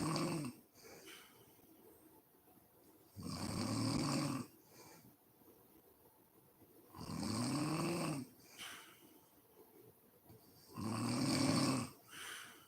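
A woman snoring in deep sleep: a loud, pitched snore about every three and a half to four seconds, the first cut off just after the start and three more in full, each followed by a shorter, softer breath.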